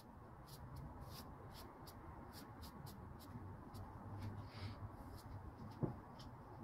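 Faint scratchy strokes of an ink brush on paper, short dry-brush strokes roughly twice a second, with a soft knock near the end.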